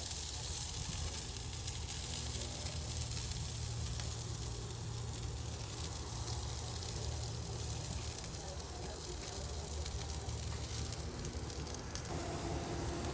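Sliced vegetables sizzling steadily on a hot grill.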